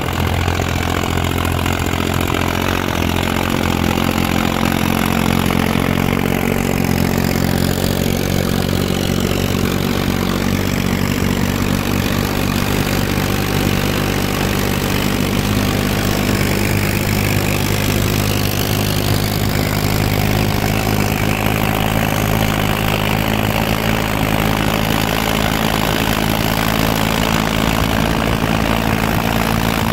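Diesel tractor engine running at a steady speed while pulling a heavily loaded trolley along the road, mixed with tyre and road noise.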